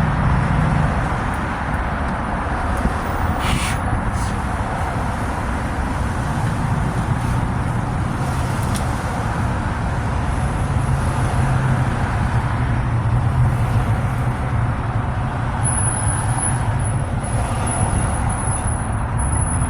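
Steady vehicle running noise: a continuous low engine hum under an even rumble of road noise, with no breaks.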